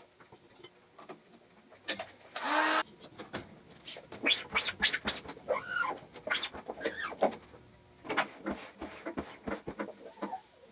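Sped-up workshop sound of manual screen printing: squeegee strokes and handling of the press, turned by the fast motion into quick, high-pitched chirps and scrapes. A short hissing blast comes about two seconds in.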